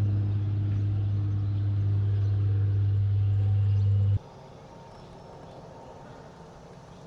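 Steady low electric hum of a kayak's trolling motor running, cutting off abruptly about four seconds in, leaving faint outdoor ambience.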